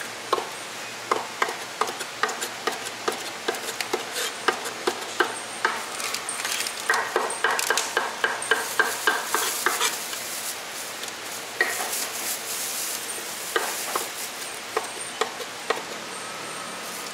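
Chinese cleaver chopping cooked pig intestine on a wooden chopping board: a string of sharp knocks, with a fast, even run of about four a second in the middle.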